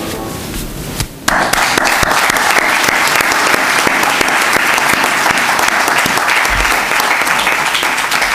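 Music dies away, and about a second in an audience bursts into applause, dense steady clapping that keeps going.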